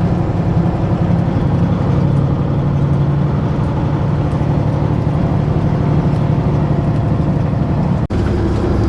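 Semi truck's diesel engine running with a steady low drone, the truck loaded with corn. About eight seconds in the sound breaks off abruptly and a slightly different engine tone carries on.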